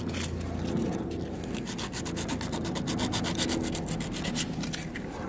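Hand sanding with 150-grit sandpaper on a scooter's painted metal frame: quick back-and-forth scratchy strokes, scuffing the paint so touch-up enamel will stick.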